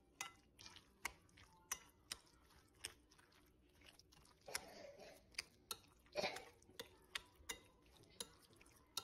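Metal spoon stirring yogurt raita in a bowl: a dozen or so faint, irregular clicks of the spoon against the bowl, with wet squelching of the yogurt about halfway through and again just after.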